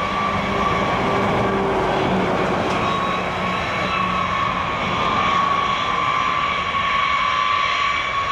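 Boeing B-52H Stratofortress taxiing on its eight Pratt & Whitney TF33 turbofan engines: a steady high turbine whine over a broad rumble.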